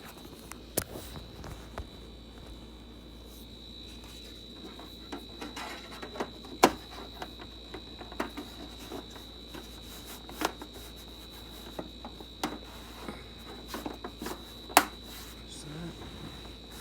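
Scattered sharp clicks and knocks, loudest about six and a half and fifteen seconds in, over a steady high-pitched whine.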